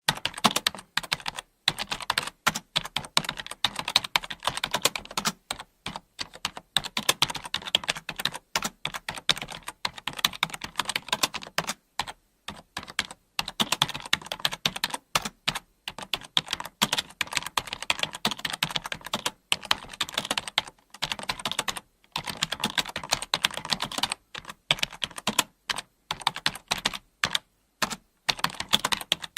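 Typing on a computer keyboard: quick runs of key clicks, with short pauses every second or two.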